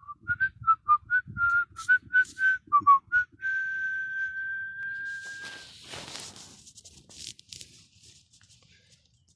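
Someone whistling a quick run of about a dozen short notes, then holding one long, slightly rising note for about two seconds. As the whistle stops, a brief rustle is heard, then it goes quiet and faint.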